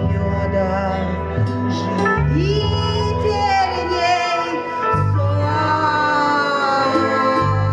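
Live ambient music: sustained low bass notes that shift pitch every second or two, with sliding, wordless high tones above them.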